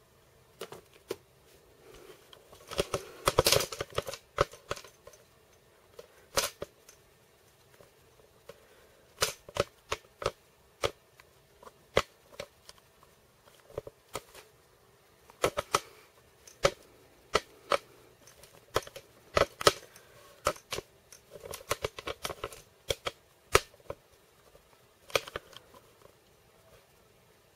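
Irregular sharp clicks and taps, some single and some in quick clusters, with a denser rattle about three seconds in and again near twenty-two seconds in.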